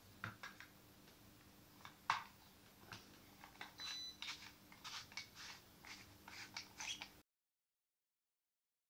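Faint clicks and scrapes of a handheld wireless microphone's plastic body being handled and fitted back together, with one sharper click about two seconds in. The sound cuts off to dead silence about seven seconds in.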